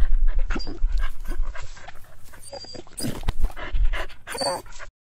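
A dog panting, with short breathy puffs and clicks close to the microphone, stopping abruptly just before the end.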